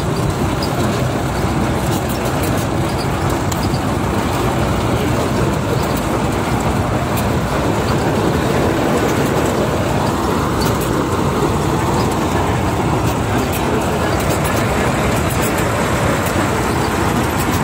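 Sonalika DI 35 tractor's three-cylinder diesel engine running steadily at road speed, heard from on board.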